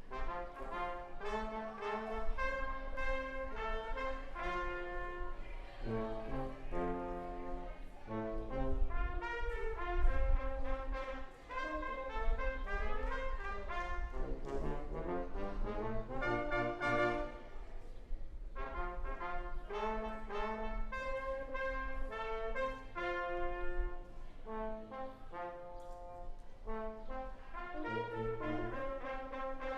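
Brass quintet of two trumpets, French horn, trombone and tuba playing an up-tempo pop arrangement, with many short, rhythmic notes and a brief drop in loudness about eleven seconds in.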